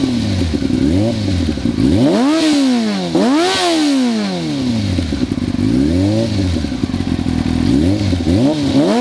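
2003 Yamaha YZF-R6 inline-four through a Laser Hotcam exhaust can, revved from idle in a series of quick throttle blips that rise and fall back. The two highest revs come a little after two and three and a half seconds in.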